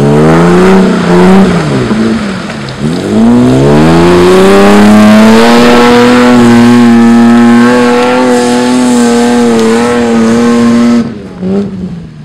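Toyota Land Cruiser VX80's engine revving through newly fitted exhaust headers: the pitch swoops down and up twice, then climbs and holds high and steady for several seconds before cutting off abruptly about eleven seconds in.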